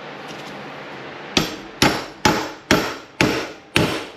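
Six sharp hammer blows, about two a second, starting a little over a second in. A 5 lb sledge is striking a socket to drive a throttle-shaft bearing into an RB26 individual throttle body until it seats.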